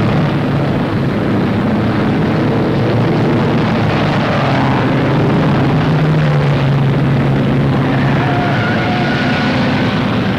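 Several open-wheel racing cars' engines running at full speed together, a loud steady drone, with a higher engine note rising slightly near the end.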